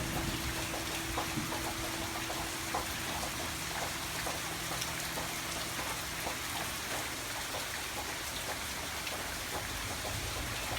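Steady rain patter: an even hiss scattered with many small drop ticks. A held low note from background music fades out over the first few seconds.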